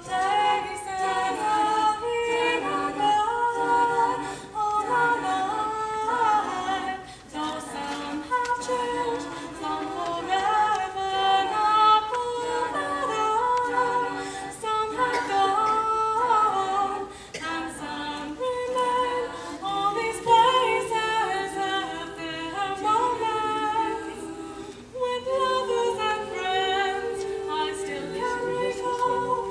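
A small choir of young women singing together in harmony, one of them singing into a handheld microphone.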